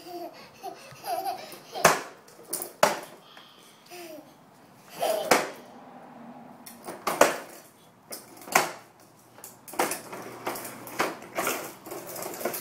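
A toddler's plastic ride-on toy train knocking and clattering on a concrete floor as he scoots it along, with sharp irregular knocks. The child babbles and laughs briefly near the start and again about four seconds in.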